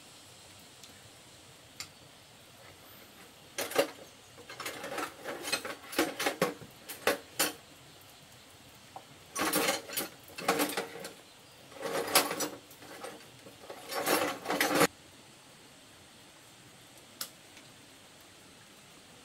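Metal hand tools clinking and clattering as they are rummaged through in a toolbox, in several short bursts that stop a few seconds before the end.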